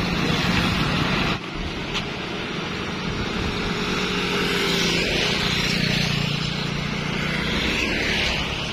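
Motorbikes and other road traffic passing on a wet road, engines running steadily, with a low engine hum growing stronger midway.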